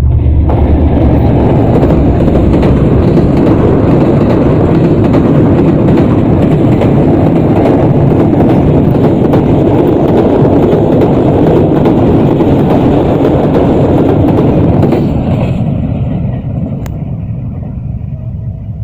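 Sir Syed Express passenger train running across a railway bridge: a loud, dense rattle with many sharp clicks starts suddenly within the first second, holds steady, and fades away from about fifteen seconds in.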